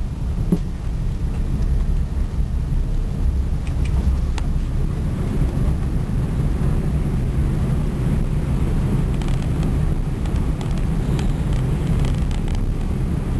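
Airbus A380 cabin noise on the landing rollout, heard from the upper deck: a steady low rumble from the engines and the runway, with a few faint clicks.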